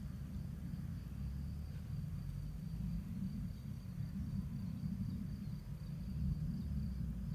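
Outdoor ambience: a low, uneven rumble on the microphone, with a faint high insect trill pulsing steadily above it.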